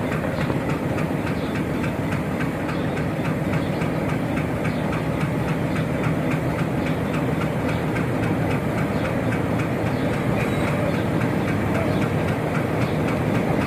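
A Pakistan Railways train hauled by a GE U40 diesel-electric locomotive running along the track: a steady rumble and engine hum with rapid, regular clicking from the wheels. It grows slightly louder near the end.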